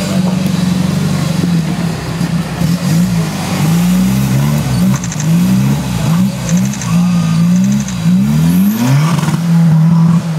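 Engine of a modified Suzuki Samurai off-road trial 4x4 under hard load on a steep dirt climb. It runs steadily for the first few seconds, then revs up and down again and again in quick rises and falls.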